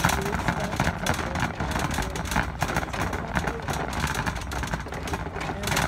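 Shopping cart being pushed along a store floor: the wheels roll with a low rumble while the wire frame rattles and clatters continuously, close to the microphone.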